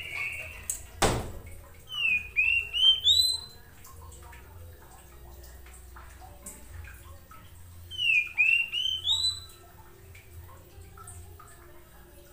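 Oriental magpie-robin calling: short rising, hooked whistles in two quick runs of about four notes each, with a single sharp knock about a second in.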